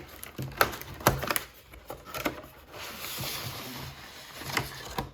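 Cardboard calendar box and trading-card packs being handled: a few light knocks and clicks, with a stretch of rustling as packs slide out of their compartments in the middle.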